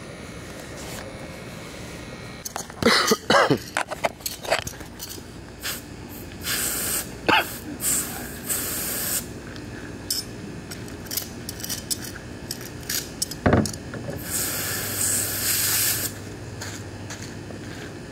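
Spray hissing in several short bursts, the longest about two seconds near the end, with sharp clicks and knocks in between.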